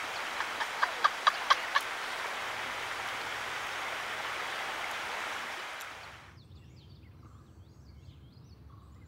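Steady outdoor noise with a quick run of about seven short, high bird chirps in the first two seconds. About six seconds in, it drops to a much quieter outdoor hush with faint, high bird calls over a low rumble.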